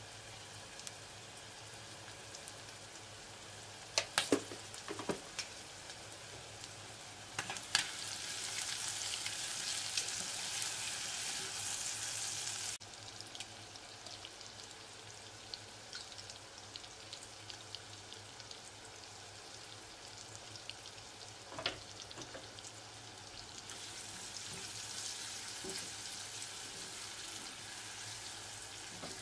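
Shrimp and sliced onion sizzling in hot oil in a nonstick pot, a steady frying hiss. A few sharp knocks come about four, five and eight seconds in and again past the middle. The sizzle grows louder for several seconds about a quarter of the way in, then drops off suddenly.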